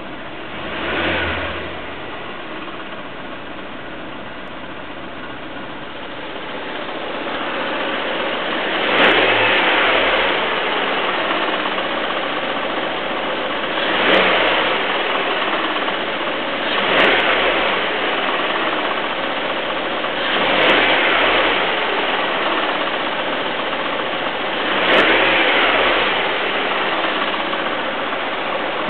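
Peugeot 307 1.6 16v four-cylinder petrol engine idling and blipped six times, each rev rising and falling back to idle within a couple of seconds. A short sharp click comes with most of the blips. This is the odd noise the owner wants identified.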